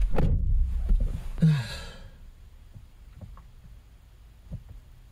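A person sighs about a second and a half in: a breathy exhale with a short falling hum of voice, over low rumbling that dies away soon after. Then only a few faint clicks.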